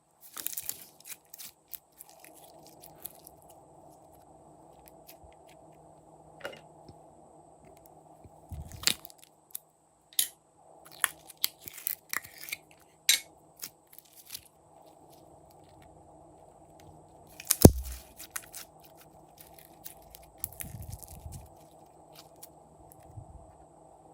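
Glossy slime being worked by hand, giving off irregular sticky crackles, clicks and pops, with one louder pop about two-thirds of the way through.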